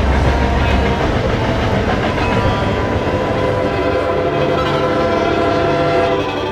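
Freight train rolling on the rails: a loud, steady rumble with wheels clacking over the track, heaviest in the first second.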